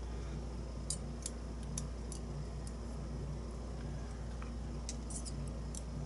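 Light metallic ticks of tweezers and tiny lock pins being handled as a pin-tumbler lock cylinder is taken apart, a dozen or so at irregular intervals, over a steady low hum.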